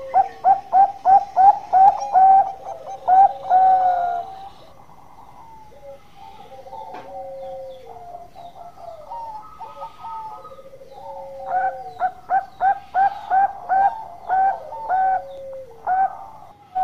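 Zebra dove (Bangkok-bred perkutut) singing: a fast run of short staccato coos, about four a second, that ends in a longer drawn-out note. The run comes twice, at the start and again from about two-thirds of the way through, with softer, lower cooing in between.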